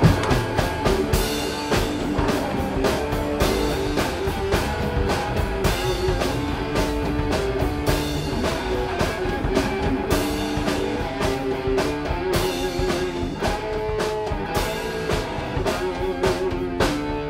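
Improvised instrumental rock: electric guitar playing sustained, repeating notes over a drum kit keeping a steady beat of drum and cymbal hits.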